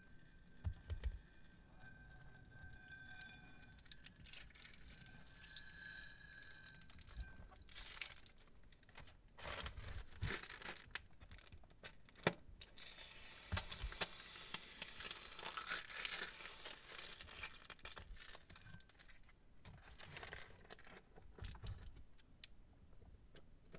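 Plastic piping bags crinkling and rustling as they are handled and squeezed over a glass dish, with a sharp scissor snip through a bag tip about twelve seconds in. A thin squeak sounds over the first several seconds.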